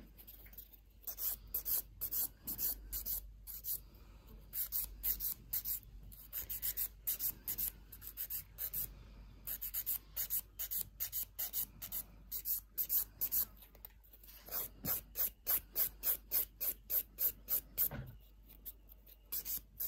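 Nail file rasping across gel-coated fingernails in quick, regular back-and-forth strokes, a few a second, with a short pause about nine seconds in: the top coat and base coat being filed off.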